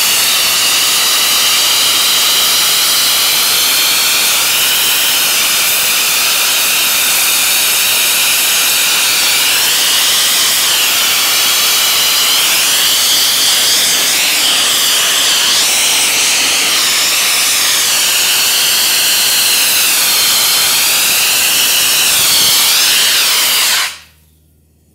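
Wet abrasive blasting nozzle of a TECHNIKOR wet blaster spraying water, compressed air and abrasive onto steel grating: a loud, steady hiss whose tone wavers as the nozzle moves. It cuts off suddenly near the end.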